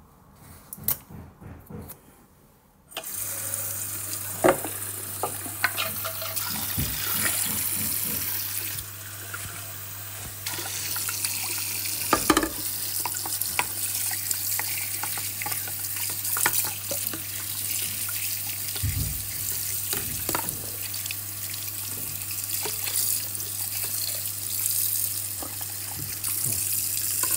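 Tap water running into a sink and splashing over a magnetic filter's magnet core as black magnetite sludge is rinsed off, starting about three seconds in. Occasional sharp knocks as the parts are handled against the sink.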